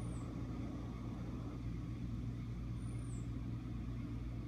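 Steady low hum with faint background noise, with a faint high falling chirp at the start and again about three seconds in.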